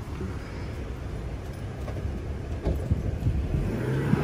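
A car running, a steady low rumble that grows louder about three seconds in.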